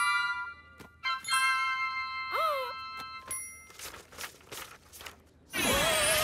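Cartoon sound effects: chiming bell tones, a short rising-and-falling pitch glide, then, about five and a half seconds in, a loud shimmering magical sweep with warbling tones as a rainbow beam bursts out.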